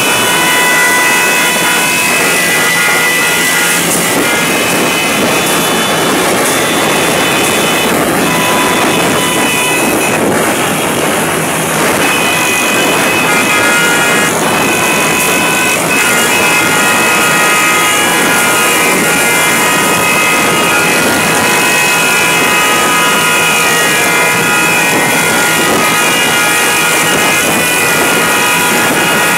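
A crowd of motorcycles running at speed, heard from a motorcycle riding among them, with a dense rush of engine and wind noise. Several steady high-pitched tones sound on and off over it.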